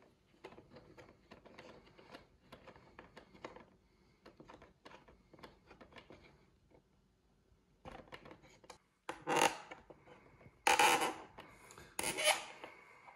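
Allen wrench turning a button-head machine screw into a plastic mounting block, the screw rubbing and scraping stiffly as it cuts its own thread. The scraping is faint at first, with louder bursts in the last few seconds. The fit is tight, but the screw is not cross-threading.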